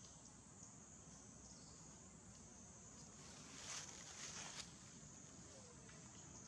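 Faint, steady, high-pitched drone of insects in the trees, with a few short rustles a little past halfway.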